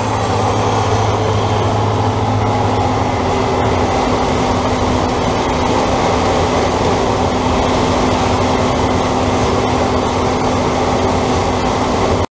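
New Holland CR 9080 combine harvester threshing maize close alongside, with the wagon and tractor running beside it: a loud, steady machinery drone with a few constant hum tones.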